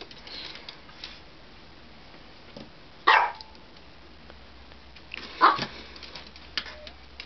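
American Eskimo puppy barking twice during play, two short barks about two and a half seconds apart.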